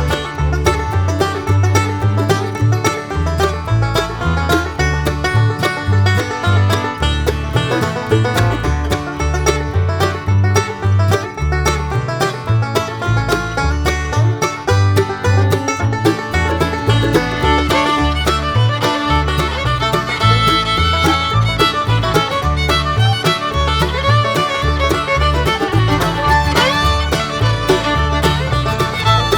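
Instrumental background music with a steady beat and no singing.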